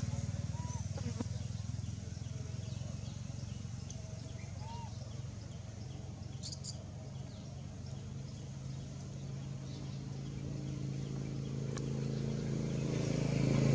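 A motor vehicle engine running, fading away and then growing louder again near the end as it comes closer, with a few faint high chirps over it.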